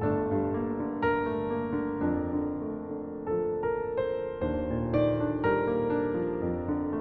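Slow, soft piano music over the end credits: single notes struck about once a second over held low bass notes.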